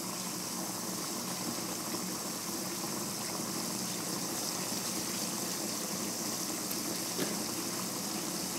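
Ground-beef and tomato sauce simmering in a frying pan on a gas burner: a steady bubbling hiss, with one faint tick near the end.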